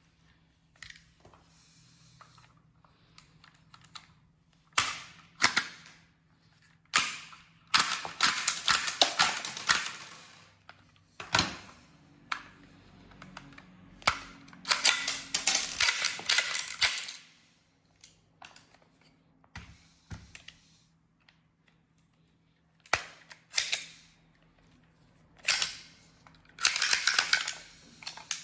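Pistol being worked through malfunction-clearing drills: sharp metallic clacks of the slide and magazine, spaced a few seconds apart, with three bursts of rapid clicking and rattling lasting about two seconds each.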